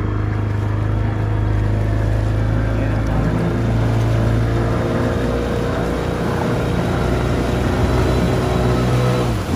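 A fishing boat's engine running steadily, a loud, even low drone with no change in speed.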